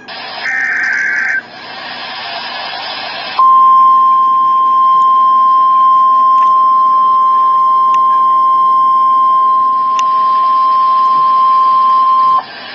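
A short burst of digital data tones from a SAME header and a couple of seconds of radio static hiss, then NOAA Weather Radio's steady 1050 Hz warning alarm tone, held for about nine seconds. The tone is the alert signal that comes before a new tornado warning.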